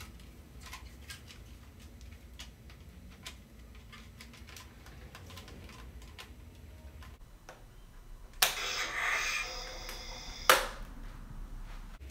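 Black Series Darth Vader electronic replica helmet being fitted on: light plastic clicks and taps as the pieces are handled, then, after about eight seconds, the helmet's built-in hiss of air sealing the helmet plays for about two seconds and ends in a sharp click.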